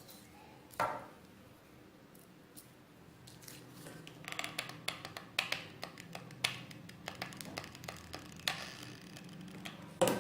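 Hands handling wooden popsicle sticks and a hot glue gun: a scatter of small clicks, taps and rustles, busiest in the second half, with one sharper knock near the end.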